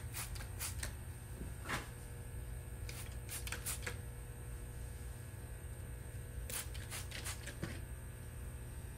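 Hand trigger spray bottle squirting soapy water onto the compressor's new fittings as a leak check: short, sharp spritzes in small clusters of two to four.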